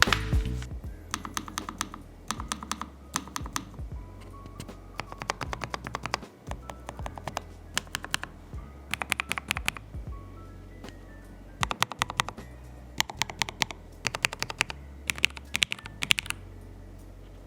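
Keys of a Lofree low-profile mechanical keyboard being typed on, in quick runs of clicks broken by short pauses.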